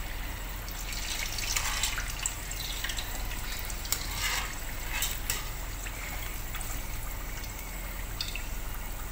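Hot oil sizzling steadily around stuffed pastries deep-frying in a pan, browned on both sides, with a few sharp clicks from a wire spider strainer touching the pan as they are turned and lifted out.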